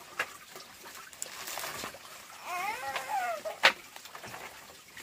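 Water splashing, with scattered clicks and knocks and one sharp knock a little past halfway. A brief high wavering cry comes near the middle.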